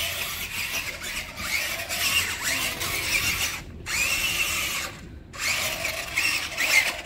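Electric drive motor and gearbox of a Grave Digger Freestyle Force RC monster truck whining, the pitch rising and falling with the throttle. It stops briefly twice, a little past the middle.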